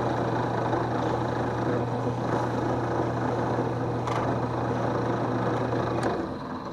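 Drill press motor running at steady speed with a constant hum, and 2,500-grit sandpaper hissing against the spinning wood; the motor shuts off about six seconds in.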